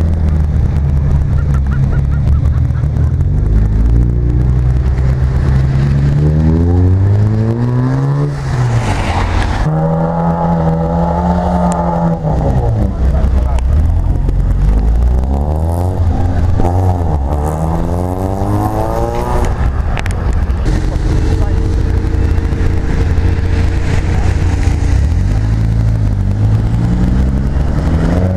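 Modified car engines revving and accelerating away one after another, the pitch climbing again and again as they pull through the gears, with a high rev held briefly about ten seconds in.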